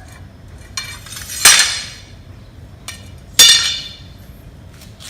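Two loud, ringing clinks of hard objects struck together, about two seconds apart, each fading within half a second, with lighter clicks and taps between them.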